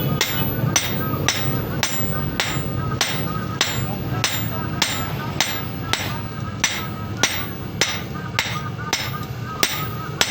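Blacksmith's hammer striking metal on an anvil while forging, in a steady rhythm of about one and a half blows a second, each blow with a short metallic ring.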